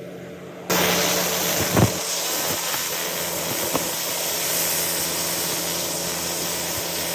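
An engine running steadily with a hiss, cutting in abruptly within the first second, with a single knock soon after.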